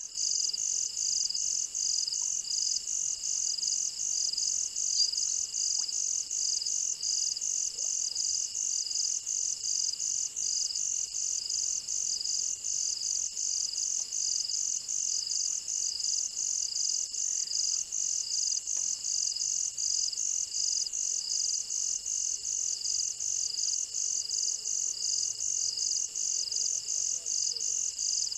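Night insects calling: an even, high-pitched pulsing, about three pulses a second, over a steady high hum.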